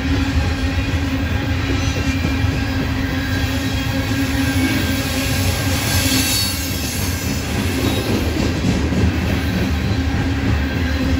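Loaded coal cars of a CSX freight train rolling past: a steady, loud rumble of steel wheels on rail, with thin steady squealing from the wheels that is strongest about halfway through.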